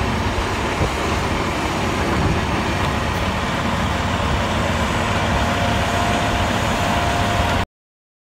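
Diesel engines of heavy demolition equipment, an excavator and dump trucks, running in a steady rumble, with a faint steady whine in the last couple of seconds. The sound stops abruptly near the end.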